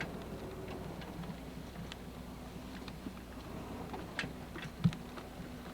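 Vehicle interior on a rough dirt road: the engine hums low and steady, with scattered ticks and rattles from the body and a sharper knock about five seconds in as the car jolts over bumps.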